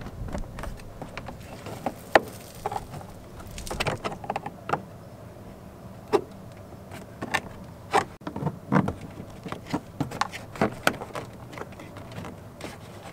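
Plastic door-handle surround on a Vauxhall Combo C door card being pried off with a plastic trim tool: irregular light plastic clicks and scrapes, with a few louder clicks among them.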